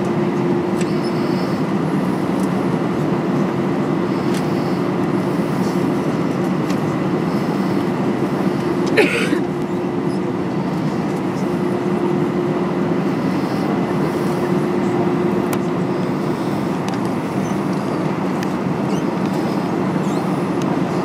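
Steady cabin noise of an Airbus A320-232 taxiing, its IAE V2500 engines at low taxi power. A steady hum weakens a little past the middle and returns near the end, and a short knock comes about nine seconds in.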